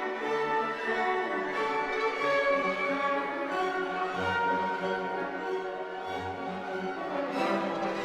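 Orchestral string music, with violins over low bass notes, playing steadily.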